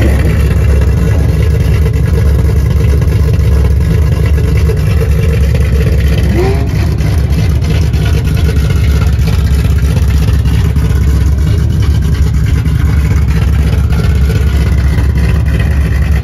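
Car engine idling with a loud, steady, deep exhaust rumble.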